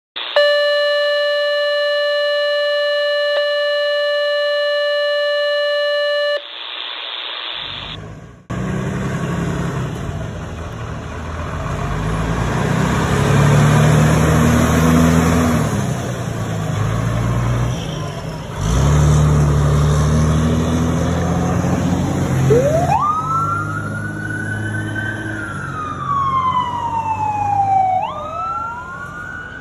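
Emergency vehicles responding with sirens: after a steady held tone at the start, a fire engine's heavy low engine rumble dominates from about 8 s, and from about 23 s an electronic siren wails, rising and falling in long sweeps.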